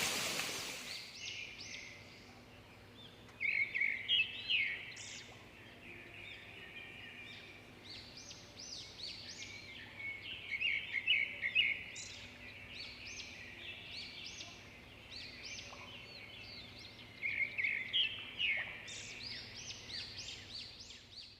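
Birds chirping and calling in bursts of quick, high, repeated chirps, with quieter stretches between. A rush of falling water fades out in the first second.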